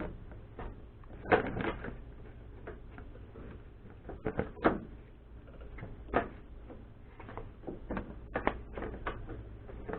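Irregular clicks and knocks of auxiliary fan and shroud parts being handled and fitted together by hand, the sharpest knocks about a second in, near the middle and a little past it.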